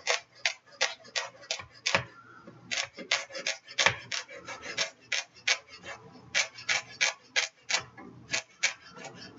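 A chef's knife chopping serrano pepper into a fine dice, its blade tapping down on a cutting board in quick, uneven strokes, about three or four a second.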